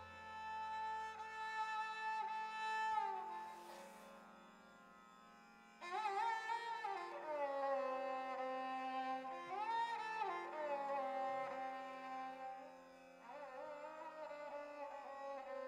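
Hindustani classical music: a slow melodic line of long held notes with sliding glides between pitches, over a steady drone. The melody falls away for about two seconds partway through, then comes back.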